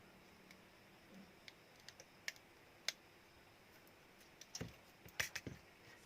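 Faint, scattered clicks and taps of small tools and plastic and metal parts handled while working on a Samsung Galaxy A02s phone, with a quick run of louder clicks near the end.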